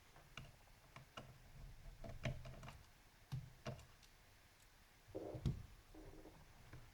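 Faint scattered clicks and light knocks of laptop cooling-system parts and casing being handled, with a short tonal sound a little past five seconds in.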